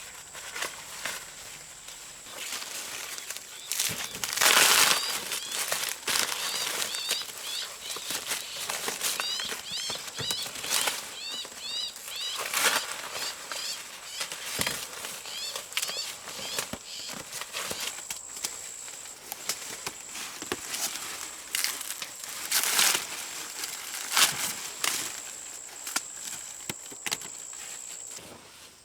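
Dry corn husks and leaves rustling and crackling in repeated swishes as ears of corn are handled, with a run of short bird chirps partway through.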